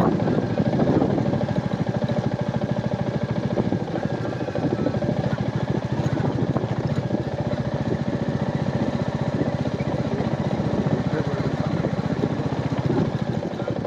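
Royal Enfield Meteor 350's single-cylinder engine running steadily under way, its exhaust giving a fast even beat.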